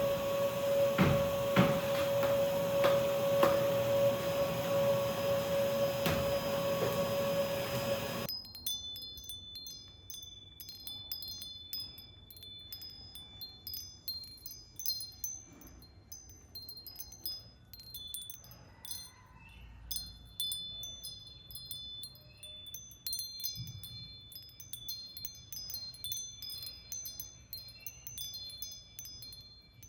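A household cleaning machine, likely a vacuum cleaner, running with a steady hum and a few knocks, cutting off suddenly about eight seconds in. After that come quiet runs of high, clear tinkling chime notes.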